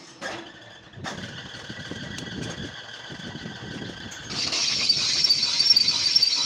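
Metal lathe running, turning a cast iron belt pulley. About four seconds in, the cutting tool bites into the rim and a loud, high scraping screech of the cut rises over the machine's steady hum.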